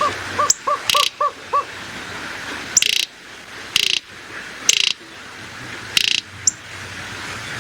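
Greater roadrunner calling: a quick run of short repeated notes, then a series of short, dry rattles, roughly one a second, the bird's bill-clattering.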